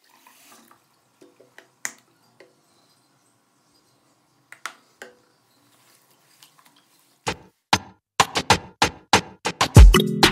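Faint splashes and drips of a wet synthetic wig being rinsed and squeezed in a bathroom sink. About seven seconds in, a music beat of sharp percussive hits starts and quickly grows denser and louder. A bass line joins near the end.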